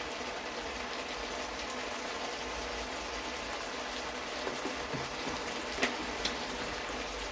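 Meat and onions sizzling steadily in a frying pan, stewing in fat and wine, with a couple of faint clicks about six seconds in.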